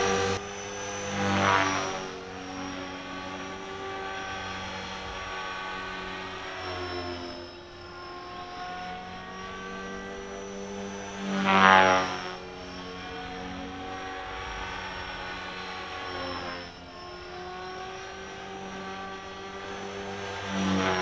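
Align T-Rex 450 Pro V2 electric RC helicopter in flight, its main rotor spinning at about 3100 rpm: a steady whine of rotor and motor tones. It swells loudly as the helicopter passes close, about a second and a half in, again around the middle and once more at the end, its pitch bending with each pass.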